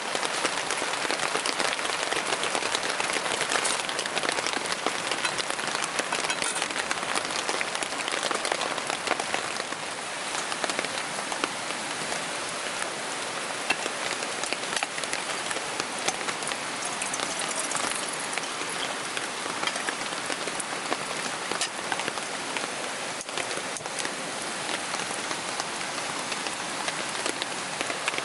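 Heavy downpour: a steady, dense patter of raindrops.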